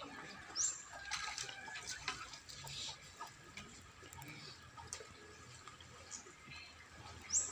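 Outdoor ambience: a faint steady background with scattered light clicks and two short, sharp high chirps, one about half a second in and one near the end.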